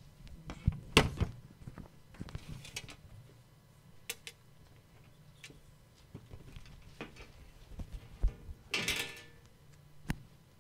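Scattered knocks and clicks, like things being handled or moved, the loudest cluster about a second in. There is a short rustle near the end, over a faint steady low hum of room noise.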